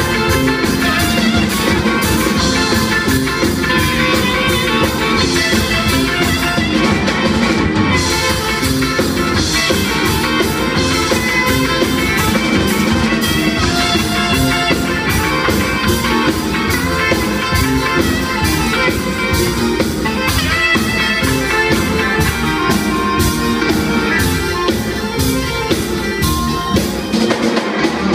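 Live ska band playing with saxophone, electric guitar, keyboards and drum kit over a steady, even beat.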